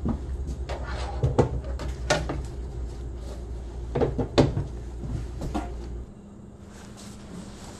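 Several sharp knocks and clatters of a kitchen cupboard door being opened and shut, loudest about four seconds in. A steady low hum underneath cuts off suddenly about six seconds in.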